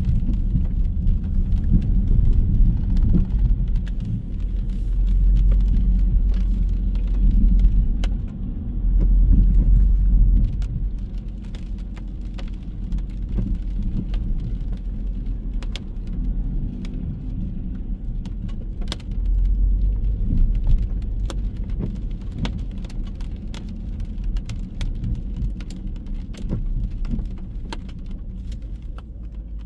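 Low rumble of road traffic on a wet city street, rising and falling in swells as vehicles pass, with scattered sharp ticks of raindrops.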